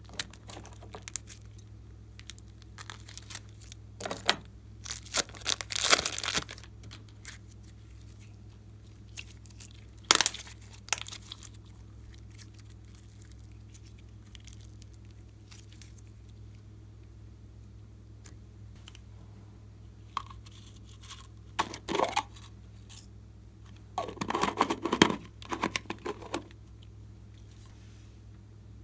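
Slime being stretched and squeezed by hand, giving irregular bursts of sticky crackling and tearing with long pauses between, over a faint steady low hum.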